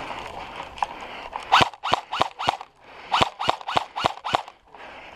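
Airsoft electric gun fired on semi-auto in quick succession, a sharp mechanical shot with a short motor whine each time. Four shots come about a second and a half in, then six more about three seconds in, roughly three a second.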